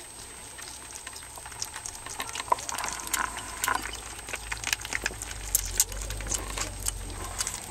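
Savannah kittens eating soft wet food from a shared bowl: irregular wet smacking, lapping and clicking, denser after the first couple of seconds, with a low rumble growing in the second half.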